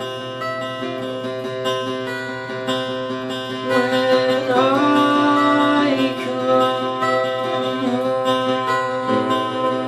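Acoustic guitar played with a man singing over it; the voice is loudest from about four to six seconds in.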